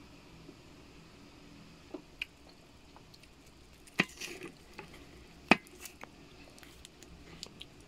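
Scattered light clicks and taps from handling a frozen mango ice candy in its plastic bag over a paper plate, with a short rustle about four seconds in and the sharpest tap about a second and a half later.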